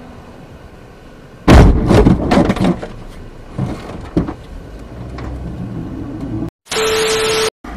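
Side-impact car collision heard from inside the car: a sudden loud crunch about a second and a half in, a second or so of crashing and knocking as the cars grind together, then two smaller knocks.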